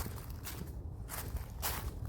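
Footsteps of a person walking on a forest path, a soft crunch with each step, over a steady low rumble.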